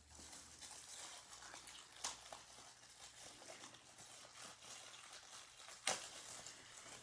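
Faint crinkling and rustling of packing wrap being pulled off a small handbag coin purse by hand, with a sharper crackle about two seconds in and a louder one near the end.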